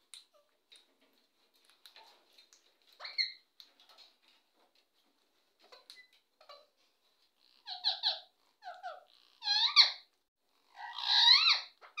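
Rose-ringed (Indian ringneck) parakeets calling. There is a faint call about three seconds in, then from about halfway a run of loud, harsh screeches, each a quick rise and fall in pitch, with faint clicks in between.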